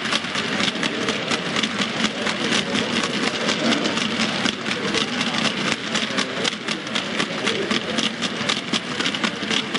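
A long rake of 7mm-scale model hopper wagons rolling along model railway track, their metal wheels clicking rapidly and irregularly over the rails over a steady rolling rumble.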